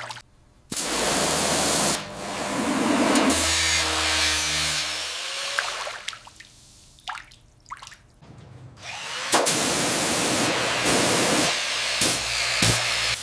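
Water sprayer jetting onto rusted metal in two long bursts of steady hiss, with a low motor hum under part of the first; between them a quieter stretch with a few clicks and taps.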